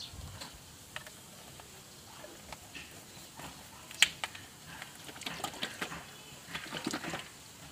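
Light clicks and knocks of plastic engine-oil bottles being handled, with one sharp click about four seconds in and a quicker run of clicks and rustles near the end.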